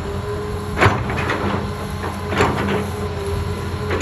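Excavator's diesel engine running steadily under load while it pushes, with a few sharp knocks, about a second in and again around two and a half seconds in.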